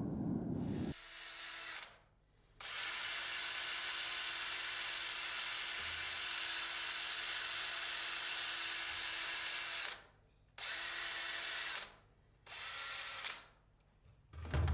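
Handheld power tool, a drill-type rotary tool, cleaning up a freshly brazed aluminium air-conditioning pipe joint. It runs steadily for about seven seconds, stops briefly, then runs in two short bursts of about a second each.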